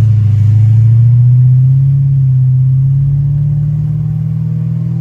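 2004 Lexus LS430's 4.3-litre V8 accelerating through a new X-pipe and aftermarket mufflers, heard from inside the cabin. The exhaust note rises in pitch over about three seconds, then holds steady.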